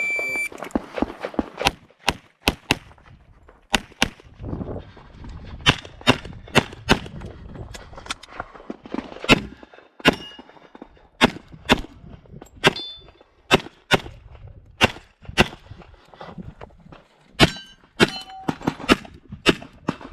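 A shot timer's start beep, then a string of pistol shots from an STI 2011 in .40 S&W, mostly fired in quick pairs with short gaps between them. A few shots are followed by a brief metallic ring.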